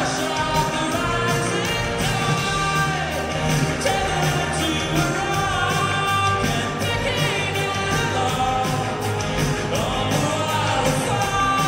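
Male lead vocalist singing live into a microphone over a pop-rock band with a steady beat.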